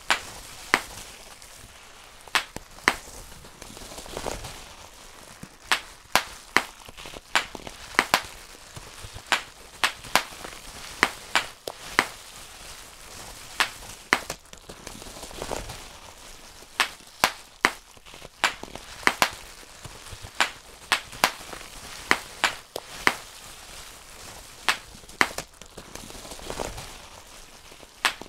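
Bubble wrap being popped one bubble at a time: sharp, irregular pops about once or twice a second, with the plastic sheet rustling between them.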